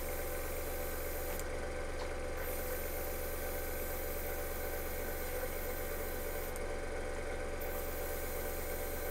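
Airbrush compressor running with a steady motor hum, while cleaner is flushed through the airbrush with a constant hiss of air. The hiss dims twice, for about a second each time, as the trigger is eased off.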